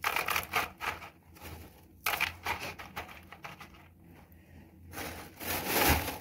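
Expanded clay pebbles (keramzit) rattling and crunching in bursts as a hand stirs and spreads them in a plastic bonsai pot. Near the end a plastic bag rustles, the loudest sound.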